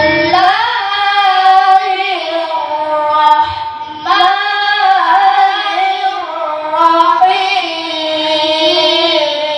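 A boy's voice reciting the Qur'an in melodic tilawah style, holding long ornamented notes, with a short break about four seconds in before the next phrase.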